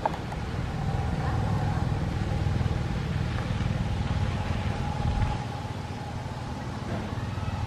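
Low rumble of a passing motor vehicle, swelling over the first few seconds and easing off later, with a steady whine above it.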